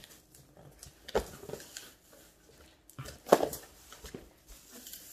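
Cardboard shipping box being handled as its top flaps are pulled open and folded back. There are two short cardboard knocks or flaps, about a second in and again a little after three seconds, with faint rustling between them.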